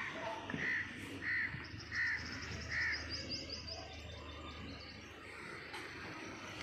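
Birds calling: four arched calls about two-thirds of a second apart, with a quick run of higher chirps in the first half, over a steady low hum.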